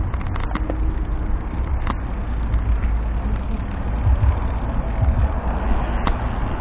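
Steady low rumble of wind on the microphone and a wheel rolling over pavement while riding fast along a sidewalk, with a few light clicks.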